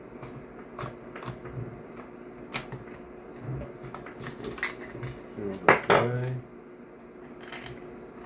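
Scattered light metallic clicks and clinks of a screwdriver and small metal parts being handled while an airsoft rifle is taken apart. A short vocal sound comes about five and a half seconds in.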